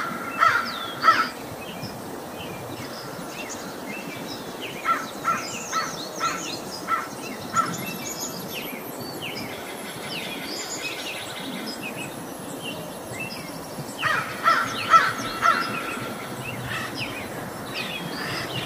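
Crows cawing in three bouts of rapid repeated caws: at the start, about five seconds in, and again near fifteen seconds. Between the bouts, smaller birds chirp faintly over a steady outdoor hiss.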